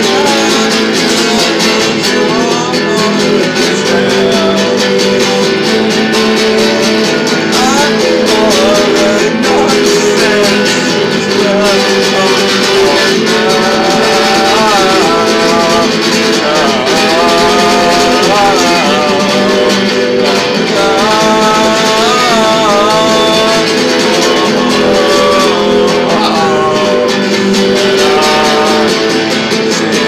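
A man singing while playing a guitar, the chords ringing steadily under a sliding, wavering vocal line.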